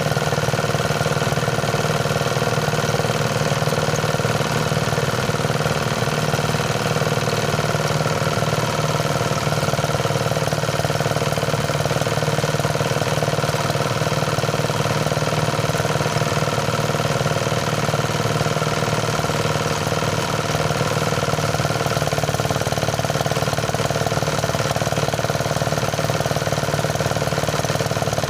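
Motorized rice thresher running steadily, a continuous engine drone.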